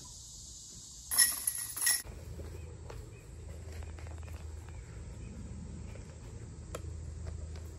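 A brief metallic jingling clank about a second in, in two quick peaks under a second long. Before it there is a faint steady high hiss, and after it a low steady rumble with a few small clicks.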